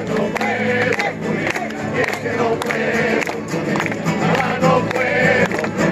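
A rondalla singing in chorus to strummed guitars.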